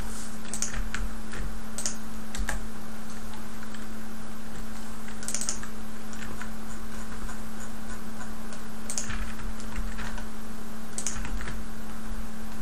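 Computer keyboard keys tapped a few at a time: a dozen or so irregular clicks in small clusters, over a steady low hum.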